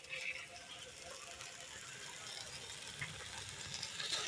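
Stirring in a cooking pan: a spoon scraping and clicking lightly against the pan over a faint hiss, as papaya cooks down in milk and sugar.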